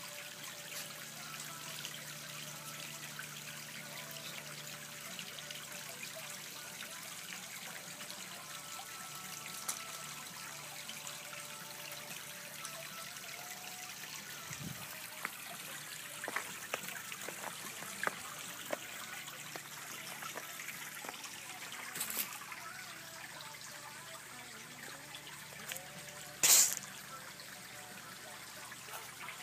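Water trickling steadily in a back-yard garden pond. A few faint clicks in the second half, and one short, much louder noise near the end.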